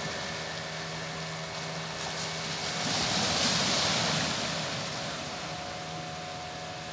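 Waves washing onto a rocky shore, one wash swelling loudest about three to four seconds in. Under it runs a steady low engine hum, like a distant boat motor.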